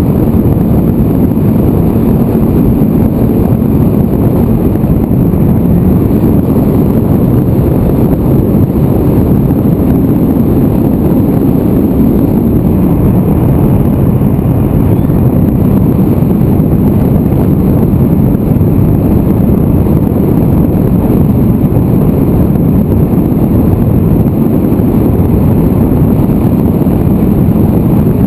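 Loud, steady rushing wind noise from air streaming over the microphone of a camera mounted on a small aircraft in flight, with a faint steady high whine above it.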